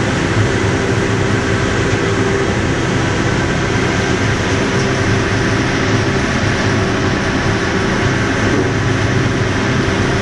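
Sawmill machinery running steadily: a loud, even mechanical drone with a low hum, from the log carriage and its saw line in operation.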